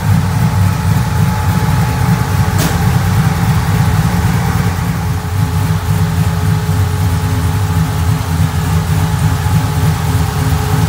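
A 416-cubic-inch V8 in a square-body Chevy pickup idling steadily with the hood up, with a single click about two and a half seconds in.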